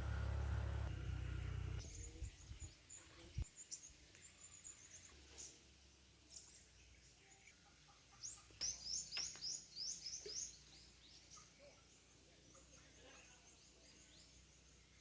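Birds chirping: short, high notes scattered through, with a quick run of falling chirps about nine to ten seconds in. A low rumble at the start stops after about two seconds.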